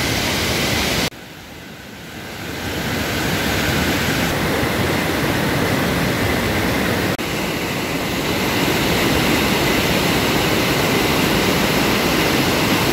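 Mountain stream rushing over rocks: a steady, loud wash of white water. About a second in it drops low and swells back over the next couple of seconds, and it breaks briefly again a little past the middle.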